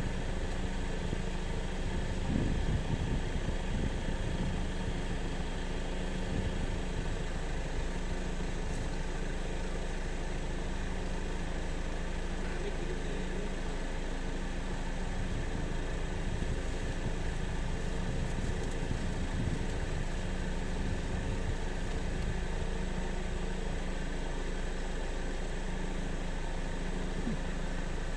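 An engine idling steadily, a constant low hum that holds the same pitch throughout.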